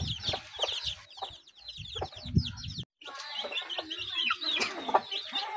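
Young chicks peeping, a busy chorus of quick, short, high chirps, with a few low thumps mixed in. The sound breaks off for a moment near the middle.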